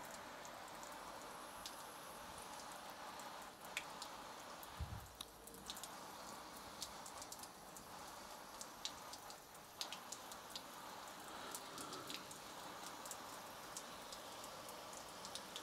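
Water sprayed down like a heavy downpour, pattering steadily on a PVC motorcycle duffle bag and wet stone paving, with many sharp drop ticks and a low thump about five seconds in. It is a simulated-rain soak test of the bag's water resistance.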